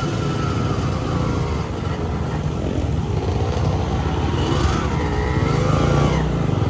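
Trail motorcycle engine running, its pitch rising and falling as the throttle is worked.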